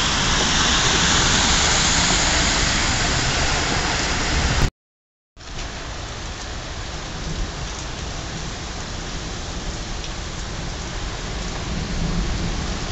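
Heavy downpour of rain pouring onto a street and yard, a dense, steady hiss. About five seconds in it cuts out completely for half a second, then carries on somewhat quieter.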